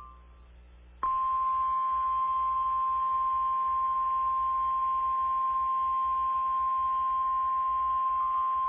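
NOAA Weather Radio 1050 Hz warning alarm tone: a single steady, unbroken tone starting about a second in. It signals that a warning message follows, here a severe thunderstorm warning.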